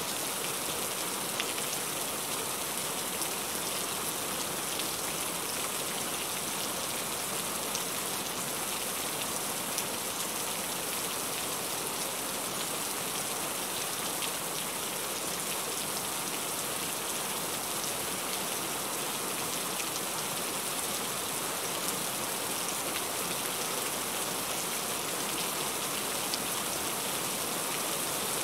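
Rain falling on a car's roof and windshield, heard from inside the cabin: a steady hiss with scattered ticks of single drops.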